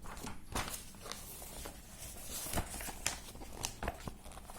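Scattered faint clicks and rustles, with a steady low hum underneath.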